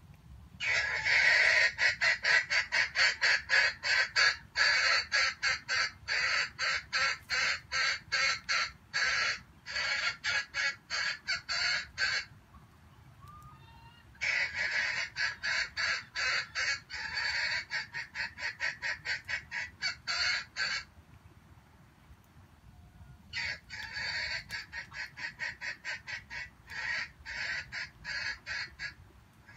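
Junglefowl calling in rapid, evenly repeated clucking notes, several a second, in three long bouts separated by short pauses.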